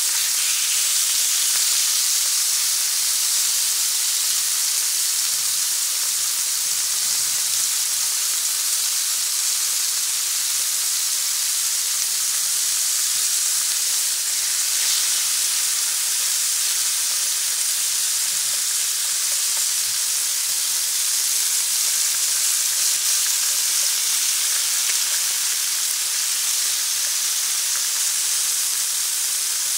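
Marinated chicken pieces frying in oil in a frying pan, sizzling with a steady high hiss.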